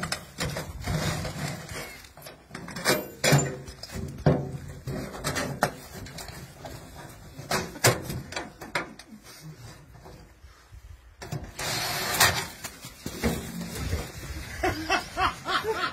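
Steel wheelbarrow being handled in a mock pit stop: repeated knocks and metallic clanks as its wheel is pulled off and refitted by hand, with a short rushing noise about twelve seconds in.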